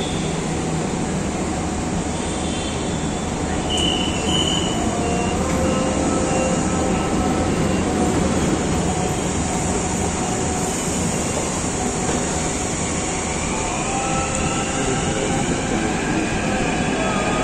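Metro train running into the platform: a steady rumble of wheels on rail, with faint whining tones that glide upward in the last few seconds as it pulls in.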